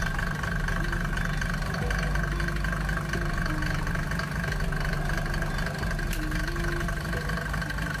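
Mercedes-Benz W124 300D six-cylinder diesel engine idling steadily while it warms up.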